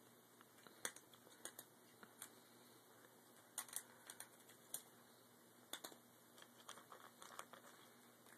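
Cats eating, heard as faint, scattered short clicks and crunches against near silence.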